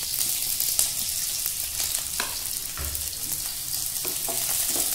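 Sliced onions sizzling in hot olive oil in a non-stick kadai, with a steady frying hiss. A wooden spatula stirs them, making a few short clicks against the pan.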